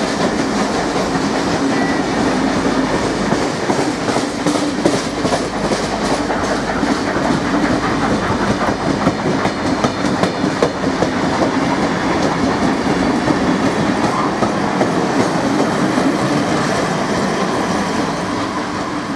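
Heritage steam-era passenger carriages rolling past close by, their wheels clattering over the rail joints in a steady clickety-clack that eases a little near the end as the last carriage goes by.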